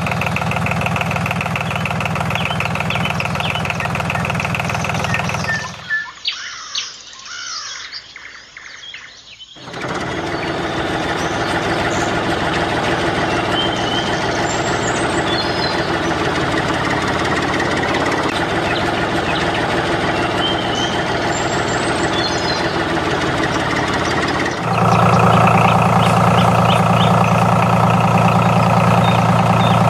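Tractor engine running at a steady idle, with birds chirping. The engine drops out for a few seconds about six seconds in, leaving only the chirps, then comes back and gets louder near the end.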